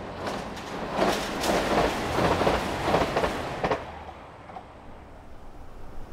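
JR Shikoku 2000 series diesel railcar train passing close by, its wheels clattering over the rail joints in a quick run of clicks. The sound is loudest a second or two in and fades away after about four seconds.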